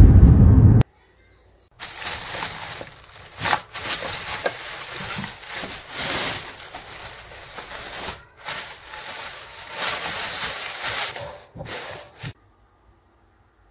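Plastic grocery bags rustling and crinkling in irregular bursts as groceries are lifted out and handled. It opens with under a second of low road rumble inside a car, which cuts off suddenly.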